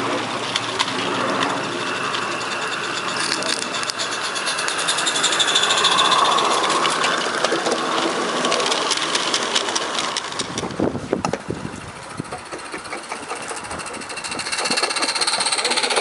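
Small live-steam garden-railway locomotive in 16mm scale chuffing fast as it hauls its coaches past, the exhaust beats and wheel clicks running together as a rapid ticking patter. The sound drops away about ten seconds in and comes back louder near the end as a locomotive runs close by.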